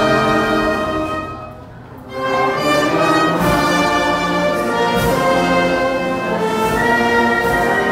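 A brass band plays a slow, stately ceremonial anthem. The music thins out briefly about a second and a half in, then comes back full.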